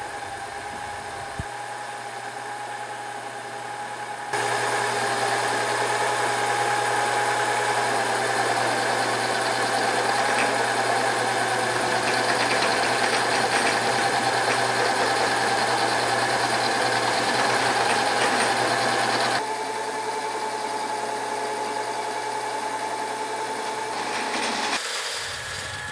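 Homemade milling machine's motor and gearhead running steadily with a held whine. About four seconds in, the end mill bites into a flat metal bar and the sound grows louder and rougher with the cut for about fifteen seconds, then drops back to the machine running with no cut; the vibration under load comes from the cross-slide vise and base, not the mill head.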